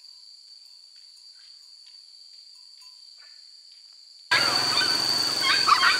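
Steady high-pitched insect drone, faint at first. About four seconds in it jumps abruptly much louder over a rushing outdoor background, with a few short chirping calls near the end.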